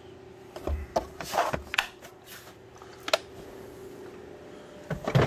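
Handling noises around a plastic torque-wrench case: a few scattered clicks and knocks with brief rubbing, and a low thud near the end, over a faint steady hum.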